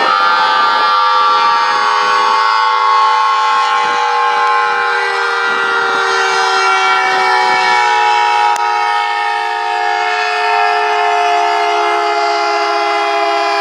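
Secomak CS8 siren sounding during a test: a loud, steady chord of several tones whose pitch drifts slowly lower.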